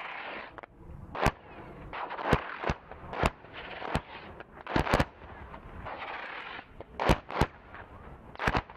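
Sensor-fuzed submunitions from a CBU-105 cluster bomb going off over and around target tanks: about a dozen sharp bangs at uneven intervals, some in quick pairs, with a rushing noise between them.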